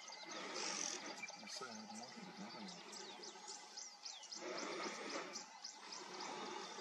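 Low murmured talk about one and a half seconds in, over steady high chirping, with a short burst of noise about four and a half seconds in.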